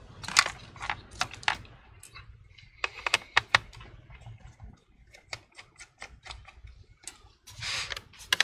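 Small clicks and taps of a precision Phillips screwdriver and fingers on a laptop's bottom cover as its screws are taken out, with a short rubbing noise near the end.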